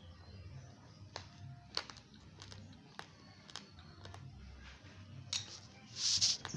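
Raw, uncooked rice grains being chewed close to the microphone: scattered sharp crunching cracks about every half second, as the hard grains break between the teeth. Near the end there is a louder burst of hissing noise.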